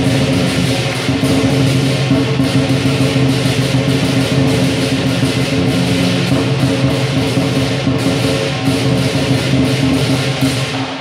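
Lion dance percussion of a big drum, cymbals and gong playing a steady, driving beat, with the metal ringing on between strikes.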